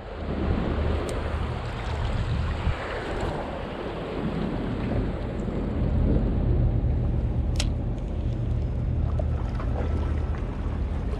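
Steady wind buffeting the microphone over open water, with a low rumble under it. A single sharp click comes about seven and a half seconds in.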